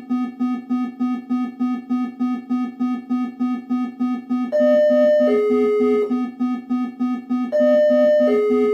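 Synthesized emergency-alert-style alarm: a low buzzing tone pulsing about three times a second, joined twice by a held higher note that steps down to a lower one.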